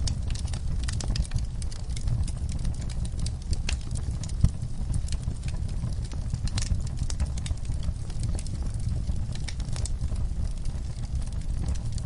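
Wood fire burning in a fireplace: irregular sharp crackles and pops over a low steady rumble, with one louder pop about four and a half seconds in.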